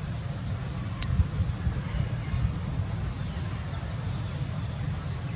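Insect chorus outdoors: a high, steady buzz that swells and fades about once a second, over a low rumble, with a single click about a second in.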